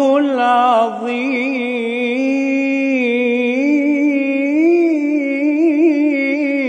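Solo male voice chanting an Islamic ibtihal: a phrase ends about a second in, then one long melismatic vowel follows, wavering with ornaments and climbing in pitch near the middle.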